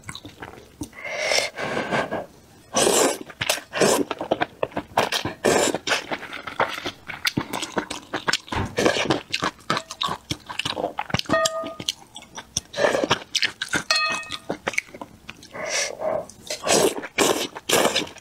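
Close-up wet slurping and chewing of potato-starch noodles in spicy soup, in repeated short loud bursts.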